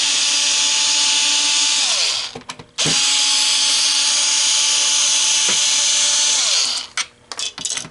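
Electric drill-driver running in two long spins, each winding down in pitch as it stops, then a few short blips near the end: screws being run out to take the stacker plate off an MEI bill validator.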